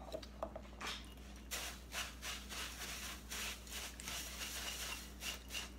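A spoon stirring and scraping Rice Krispies cereal coated in melted marshmallow in a bowl. There are a few light clicks, then from about a second and a half in a run of short rubbing scrapes at about three a second.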